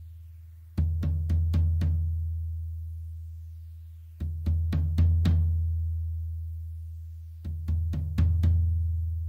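Low drum-kit tom fitted with a two-ply Remo Emperor Clear head, struck with sticks in three quick groups of five or six strokes, with the deep ring left to die away for a few seconds after each group.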